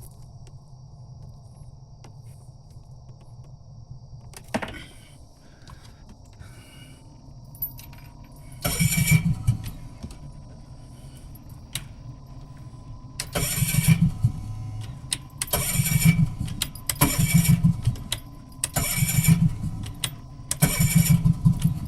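A vehicle engine being cranked over and over in short bursts of about a second each, six attempts that fail to catch: the engine won't start. A sharp click comes about four seconds in.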